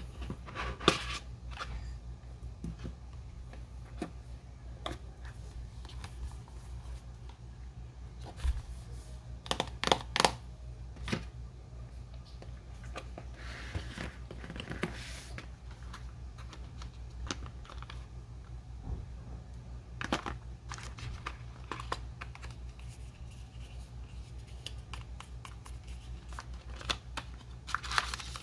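Packaging handled by hand: scattered clicks and taps with paper and plastic rustling, and a longer stretch of tearing and crinkling about halfway through, over a steady low hum.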